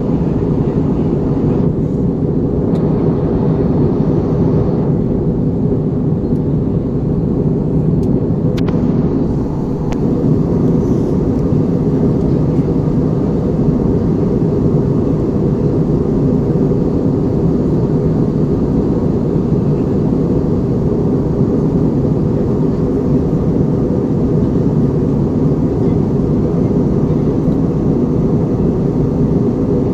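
Steady cabin noise inside an Airbus A320: a constant low drone of the engines and the air rushing past the fuselage. A few faint ticks come about eight to ten seconds in.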